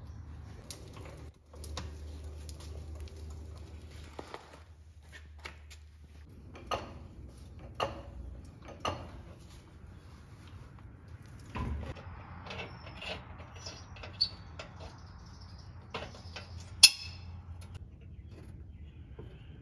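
Scattered metallic clinks and knocks of steel parts and hardware being handled while a fabricated steel bumper is fitted under a pickup's front end. One sharp clank near the end is the loudest, over a faint low hum.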